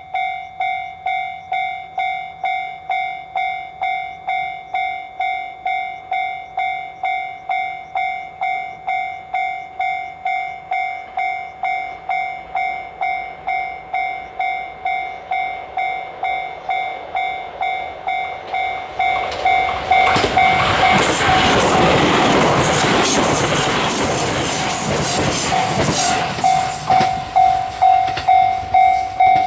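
Japanese railroad crossing alarm bell ringing steadily, about three strikes every two seconds. About two-thirds of the way through, a JR West 287 series electric train passes over the crossing with a loud rush of wheel and rail noise for several seconds, half-covering the bell, which rings on afterward.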